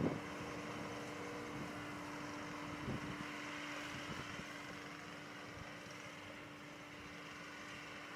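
Skid steer running steadily with a brush cutter attachment, a steady hum with one held tone. There is a short louder burst about three seconds in, and the sound eases off a little in the second half.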